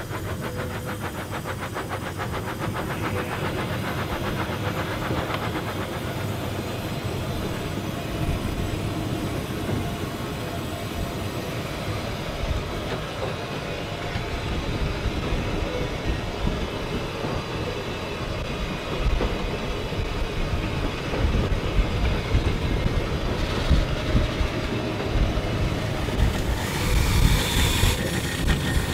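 Cab sound of Bulleid West Country class light pacific 34092 City of Wells under way: the steam locomotive running, heard from inside the cab. It grows louder and more uneven, with more knocks, over the last ten seconds.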